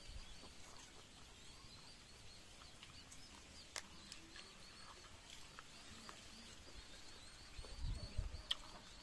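Quiet outdoor ambience with faint, short high chirps repeating in the background, a couple of sharp clicks, and a few soft low thumps about eight seconds in.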